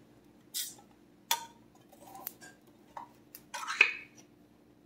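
Light scattered clicks and clinks of kitchen utensils and a soup can being handled, about six in all, the sharpest a knock near the end, over a faint steady hum.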